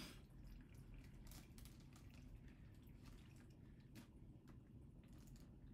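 Faint squishing and dripping as a wet cloth shirt full of fermented fruit mash (pruno) is squeezed by hand, straining the liquid into a plastic bag, with scattered small clicks.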